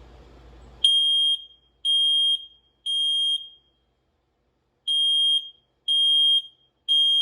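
I-9010 smoke alarm sounding under test in the temporal-three evacuation pattern. Three loud, high-pitched half-second beeps about a second apart, a pause, then three more, beginning about a second in.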